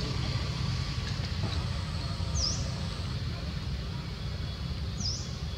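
Steady low rumble of outdoor background noise, with two short, high-pitched bird chirps, each dipping and rising in pitch, about two and a half seconds apart.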